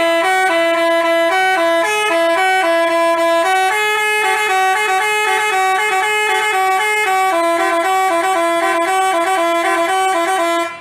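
Telolet basuri multi-tone horn playing a tune of quick, changing notes, then cutting off suddenly near the end.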